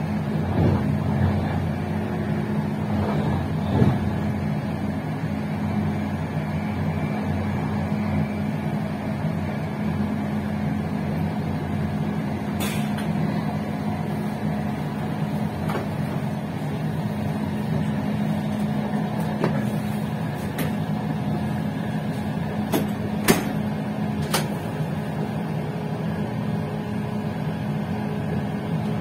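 Passenger train running along the line, a steady low hum with a few sharp clicks in the second half.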